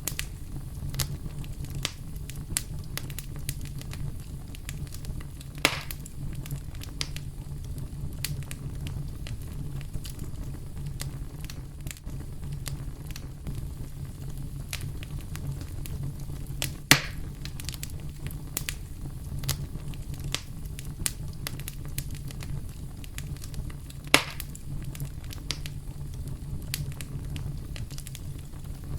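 Campfire crackling with many small snaps and three louder pops, over a steady low rumble of brown noise.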